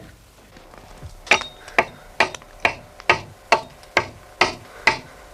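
Hammer driving nails through a wooden kelson into a wooden keel: about ten sharp, evenly paced strikes, roughly two a second, starting about a second in.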